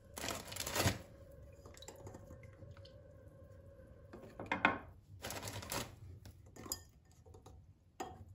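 Light clinks and scrapes of kitchen handling as biscuits are dipped into a ceramic bowl of milk and set down in a glass baking dish. They come in short bursts: about a second in, a cluster from about four to six seconds in, and a couple near the end, over a faint steady hum.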